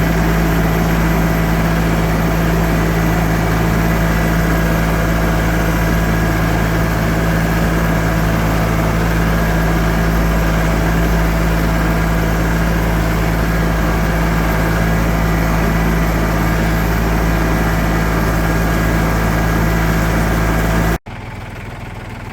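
New Holland TC33-D compact diesel tractor engine running steadily at an even speed, loud and close. The sound drops off abruptly near the end to a quieter engine hum.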